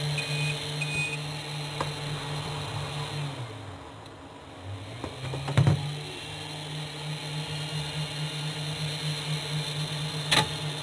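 3D printer running: a steady motor hum whose pitch drops and then rises again midway as the moves change, with a couple of short high beeps in the first second and a sharp click about five and a half seconds in.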